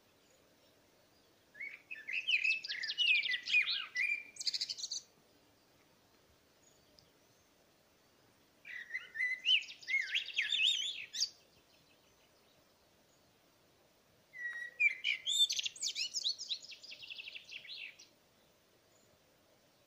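A songbird singing three separate song phrases about six seconds apart. Each phrase lasts about three seconds and is made of quick varied whistled notes and rapid trills.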